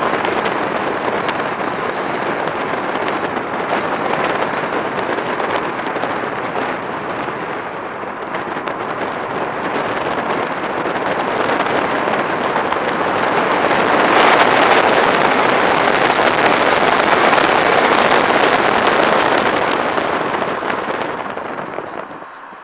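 Wind rushing and buffeting over the microphone of a camera mounted on the outside of a moving car, mixed with road noise. The rush swells past the middle and dies down near the end.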